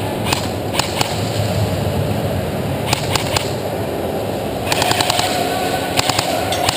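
Airsoft rifles firing: scattered single shots as sharp clicks, then rapid full-auto strings of about ten shots a second near the end.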